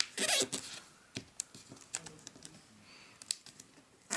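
Origami paper being folded and creased by hand: a brief rustle near the start, then scattered light crinkles and taps as the fold is pressed down.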